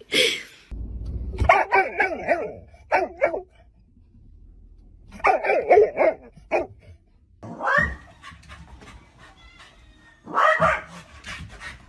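A dog barking and yipping in several separate bouts with short pauses between them.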